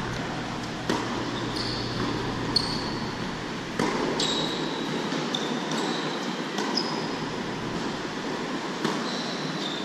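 Tennis balls bouncing and knocking on a hard indoor court, each sharp knock ringing briefly in the large hall. Several short, high squeaks of tennis shoes on the court surface come between them.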